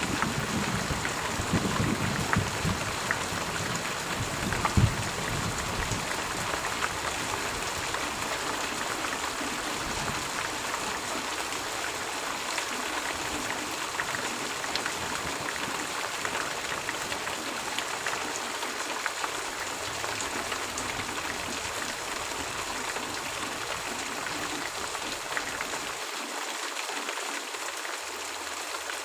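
Steady rain falling, a dense even hiss with scattered drop ticks. A low rumble dies away over the first few seconds.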